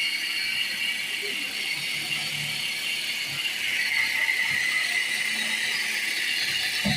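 Toyota Corolla Altis engine idling steadily with a mechanical whir and light ticking, after its hard-starting fault was fixed.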